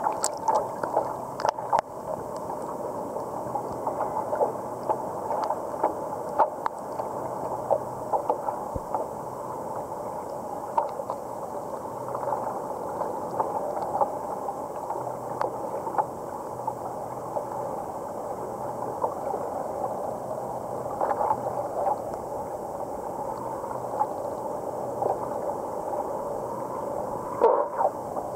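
Small ripples lapping and gurgling against a stand-up paddleboard close to the microphone, full of little irregular splashes, with one sharper, louder hit near the end.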